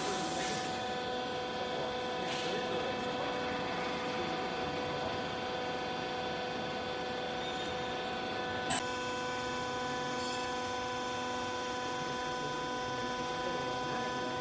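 Hydraulic baler's electric motor and pump running with a steady hum of several fixed tones. A single click about nine seconds in, after which a lower tone joins the hum.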